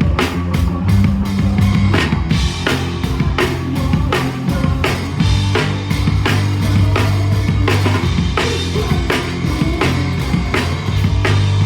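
Rock band playing live: a drum kit keeping a steady beat over sustained bass notes and guitar.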